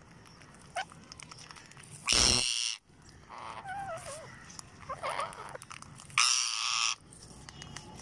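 Rose-ringed parakeets feeding: two loud, harsh screeches, one about two seconds in and another about six seconds in, each lasting under a second. Between them come softer wavering chatter calls and light clicks.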